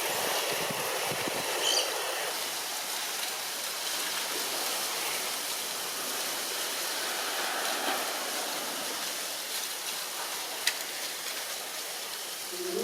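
Steady rush of moving water, with a faint sharp click about ten and a half seconds in.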